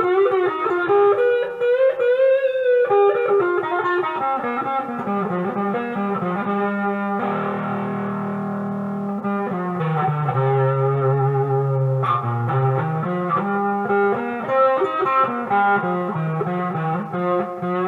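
Modded Monoprice Mini Cali electric guitar played through a heavy overdrive setting: single-note lines with string bends about two seconds in, then a held chord around the middle before more riffing.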